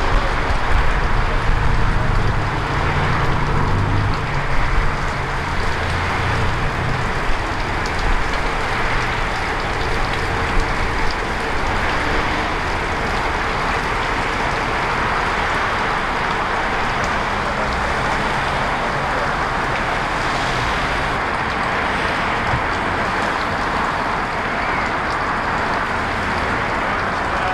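Steady highway traffic noise, a continuous hiss of tyres on the road, with a deeper engine rumble through roughly the first seven seconds that then fades.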